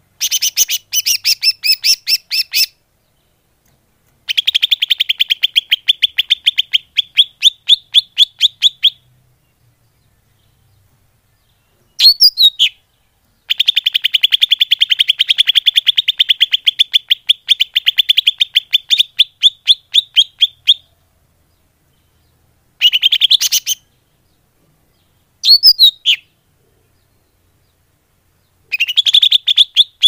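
Leafbird (cucak ijo) lure call: bursts of rapid, evenly repeated high chipping notes, two long runs lasting several seconds each, then short rising phrases near the end, separated by silent gaps.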